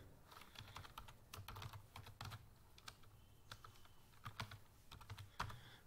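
Faint, uneven clicking of computer keyboard keys as a word is typed.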